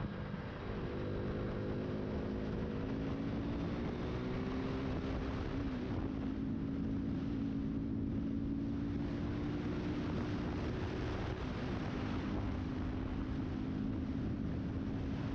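KTM RC motorcycle's single-cylinder engine running under way at road speed, its pitch climbing over the first couple of seconds and then holding steady, with wind and road noise rushing over the microphone.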